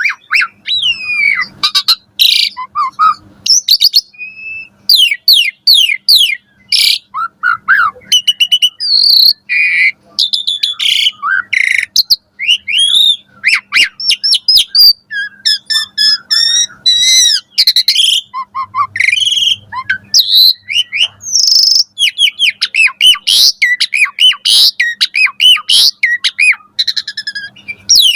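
Asian pied starling (jalak suren) singing in full voice: a loud, fast, varied song of clear whistles, rising and falling glides, rapid trills and harsh rasping notes, with hardly a pause.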